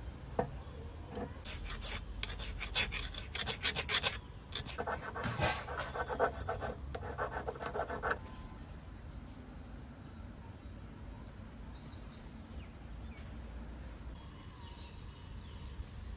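Rapid back-and-forth rasping strokes of hand filing on a workpiece, starting about a second and a half in and stopping about halfway through. Faint bird chirps follow.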